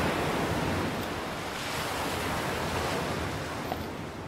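Ocean surf breaking and washing up the beach, a steady rush that is loudest at the start and slowly fades.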